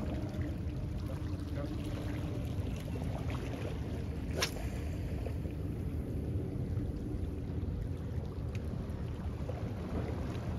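Steady low wash of sea water against shore rocks, with wind on the microphone. A single sharp click partway through.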